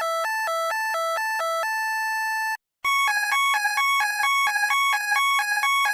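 Electronic fire alarm sounder from a mock alarm system. It first warbles back and forth between a low and a high tone several times a second, then holds a single tone for about a second. After a brief break it switches to a louder, faster pattern stepping between several higher tones, signalling the evacuation alarm.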